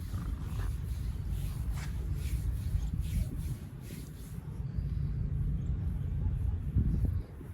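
Hands rubbing and stroking skin in a fast massage, about two strokes a second, thinning out about halfway through, over a steady low rumble.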